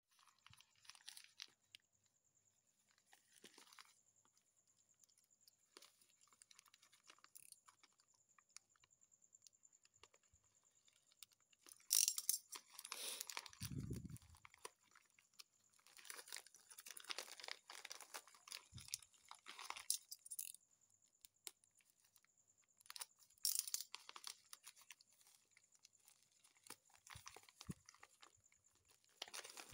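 Plastic shipping envelope crinkling and rustling in intermittent bursts as it is handled and torn open, with a low thump about halfway through.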